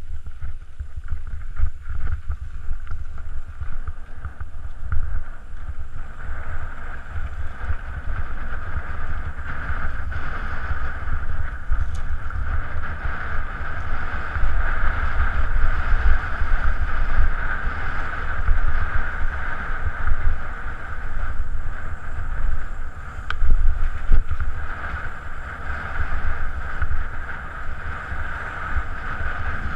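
Wind buffeting on an action camera's microphone and the rolling noise of a mountain bike riding downhill, with a steady mid-pitched hum that grows stronger after about six seconds.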